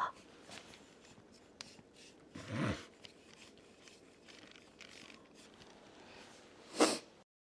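Handling noise of a camera held or moved right at the microphone: faint rustling and small clicks, a soft bump about two and a half seconds in, and a louder short bump near the end.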